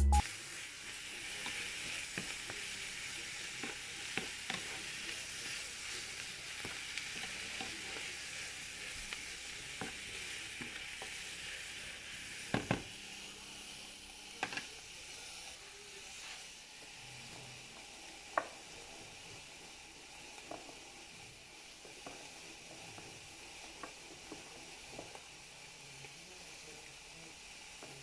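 Food sizzling in a frying pan, a steady hiss that slowly dies down over the second half, with a few sharp clicks partway through.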